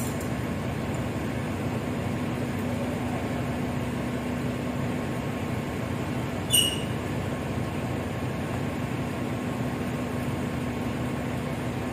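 Steady drone of shipboard machinery and ventilation with a constant low hum. One short clink sounds about six and a half seconds in.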